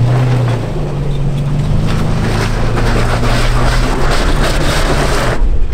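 Toyota FJ Cruiser's 4.0-litre V6 running steadily under load as the truck crawls up a steep rock slope, with wind noise on the microphone over it. It cuts off suddenly near the end.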